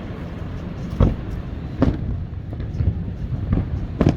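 Fireworks shells bursting in the air: three sharp booms, about a second in, just before two seconds and near the end, over a steady low rumble.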